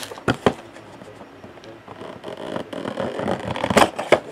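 Cardboard trading-card box being handled and slid open: rubbing and scraping of card stock, with a few sharp knocks and taps.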